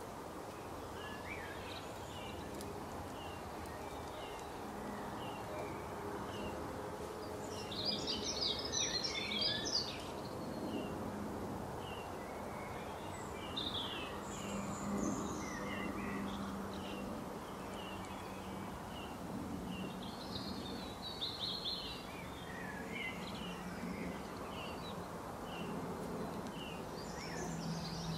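Garden birds singing: a short high chirp repeats about every three-quarters of a second throughout, with louder bursts of rapid song about eight seconds in, around fourteen and twenty seconds, and again at the end. A steady low hum runs underneath.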